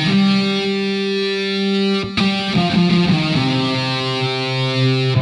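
Outro music: sustained distorted electric guitar chords, with a short run of notes about halfway through.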